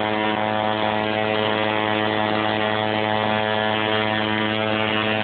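Tattoo machine buzzing steadily at an even low pitch while needling skin.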